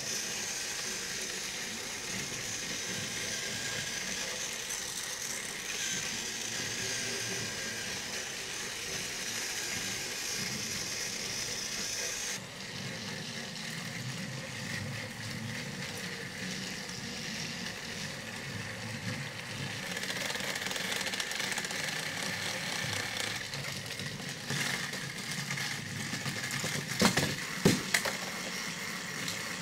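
Battery-powered Fisher-Price TrackMaster toy trains running on plastic track: a steady motor whine with the wheels rattling along the track. A few sharp, loud clacks come near the end.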